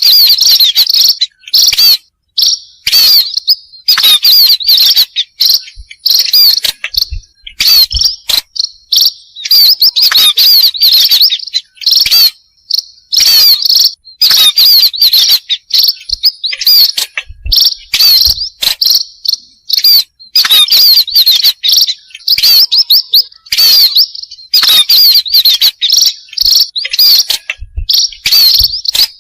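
Loud, dense chirping of a flock of burung pipit, small seed-eating birds, in a lure (pikat) recording: high-pitched chirps in rapid clusters broken by brief gaps.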